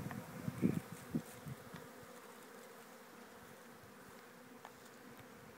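Honeybees buzzing steadily around an opened hive, with a couple of low thumps in the first second or so.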